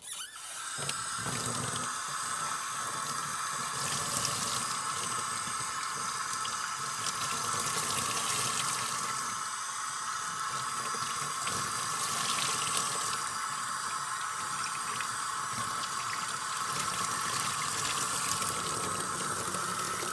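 Water running steadily from a utility-sink faucet onto a foam dirt-bike air filter held under the stream, rinsing out the detergent and dirt.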